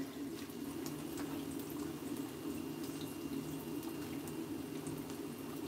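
Chicken frying in hot oil: a steady bubbling sizzle with fine, scattered crackles.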